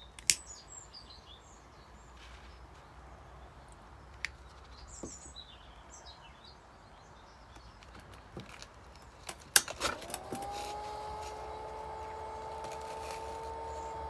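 A few clicks and knocks of the bee smoker being handled, then a sharp click about ten seconds in as the battery-powered blower of a Vulkan 2.0 bee smoker is switched on: its fan spins up quickly and settles into a steady two-tone hum, blowing air through the smouldering pellet fuel. Faint bird chirps in the first few seconds.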